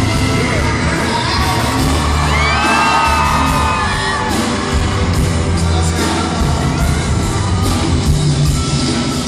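Live mariachi-style band with trumpets, violins, guitars and tuba playing while a male singer sings into a microphone, with a steady bass and the sung line clearest a couple of seconds in. Crowd yells and whoops come through over the music.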